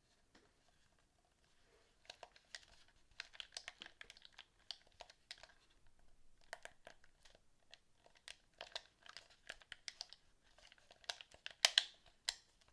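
Quick, irregular clicks and crinkling from small plastic parts being handled, in clusters that start about two seconds in and are loudest near the end.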